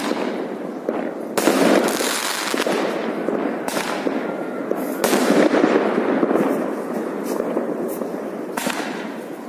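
Many fireworks and firecrackers going off all around in a continuous din of bangs and crackling. Sharper, louder bangs stand out about a second and a half in, near four and five seconds, and again near the end.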